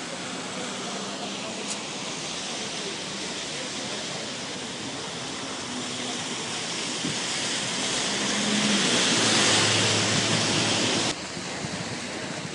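Steady hiss of rain and wet-road traffic, swelling louder over the second half and cutting off suddenly near the end.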